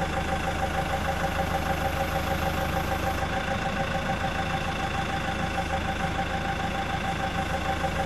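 An engine running steadily at idle.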